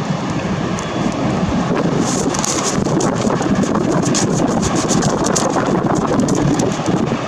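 Boeing 737-800 jet engines at takeoff thrust: a loud, steady, rumbling jet noise with a rough crackle on top.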